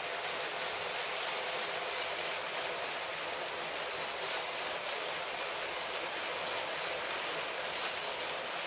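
Long, many-wagon Lego City passenger train (set 60197) running on plastic track: the many wheels rolling over the plastic rails make a steady, even rushing rattle.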